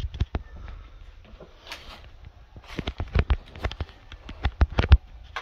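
Footsteps crunching and scuffing over debris-strewn floor, with irregular sharp knocks and clicks that bunch up about three seconds and five seconds in.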